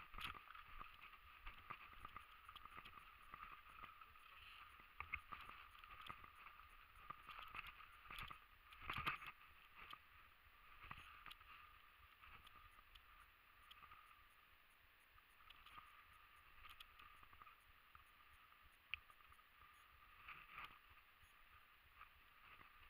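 Faint, muffled rustling and footsteps of someone moving through dry grass and brambles, with scattered small clicks and knocks, busiest about halfway through.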